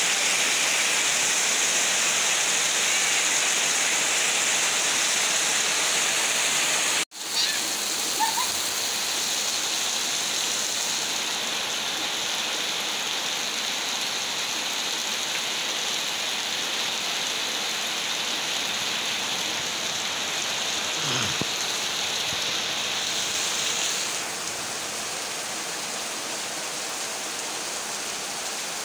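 Heavy tropical downpour: a dense, steady hiss of rain pouring onto the bare ground of the yard. It cuts out for an instant about seven seconds in, then carries on slightly quieter.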